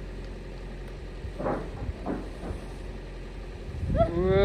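Steady low hum of a car engine idling. Faint voices come about a second and a half and two seconds in, and near the end a person exclaims "whoa".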